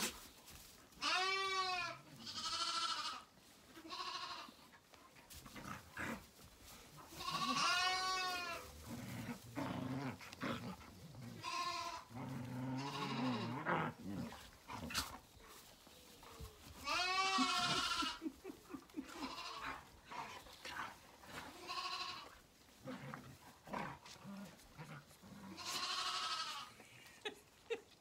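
Zwartbles lambs bleating over and over, one call every few seconds.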